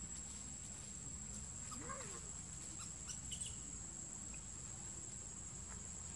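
Outdoor ambience: a steady high-pitched insect drone over a low rumble. A short, faint call rises and falls in pitch about two seconds in, and a few soft clicks follow a second or so later.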